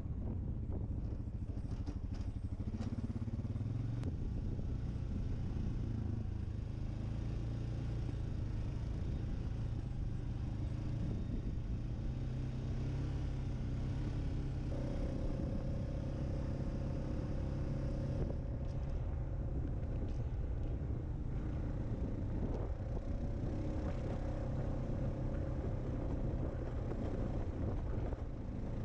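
ATV engine running steadily while the quad is ridden along a dirt trail, with a higher steady whine joining in about halfway through.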